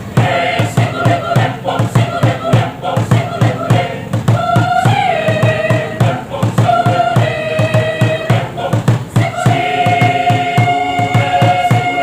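Choir singing long held notes in harmony over an accompaniment with a steady low beat.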